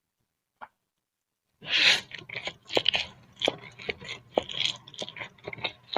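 Close-miked eating of boiled instant noodle soup: after a quiet start, a loud slurp about two seconds in, then wet chewing with many short mouth clicks and lip smacks.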